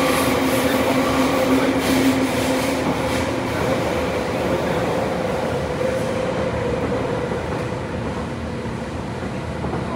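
Running noise heard inside a Tobu 9000 series electric train car in a subway tunnel: wheel and rail noise with a steady motor whine. Part of the whine drops out a few seconds in, the rest fades out after about six seconds, and the overall noise gradually quietens.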